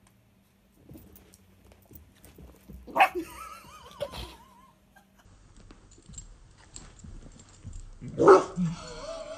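Chihuahua-cross puppy barking in sharp single barks, about three seconds in and again, loudest, near the end.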